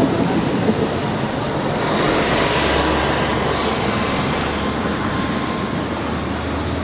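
City street traffic noise, with a vehicle passing that swells about two seconds in and fades slowly.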